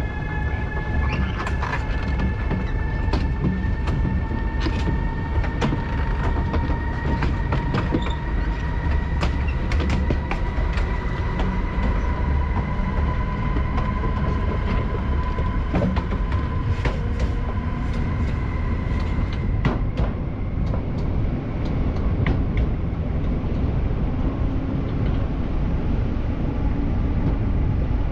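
Siemens Vectron electric locomotive running with a freight train: a steady low rumble with a two-note electric whine that slowly rises in pitch, and scattered sharp clicks of the wheels over rail joints.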